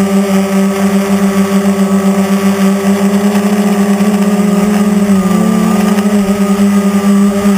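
Quadcopter's electric motors and propellers buzzing loudly at a steady pitch in flight, heard from a camera mounted on the craft right beside the props. The pitch lifts slightly and settles about five and a half seconds in.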